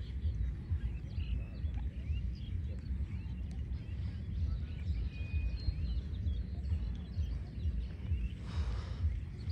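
Outdoor ambience at a lakeshore: irregular wind rumble on the microphone, with faint bird chirps and calls scattered throughout.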